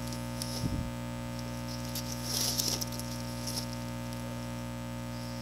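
Plastic bag rustling and crinkling in a few short bursts as it is handled, over a steady electrical hum. A soft low thump comes a little under a second in.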